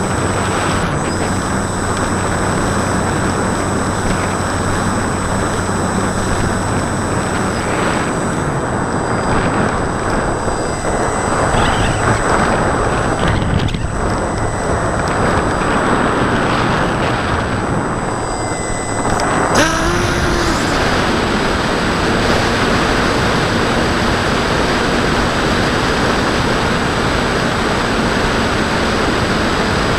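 Steady rush of wind over the onboard camera's microphone on a Bixler 2 foam RC plane in flight, with the hum of its brushless pusher motor and 8x5 propeller underneath. About two-thirds of the way through, the motor's tone shifts to a new steady pitch.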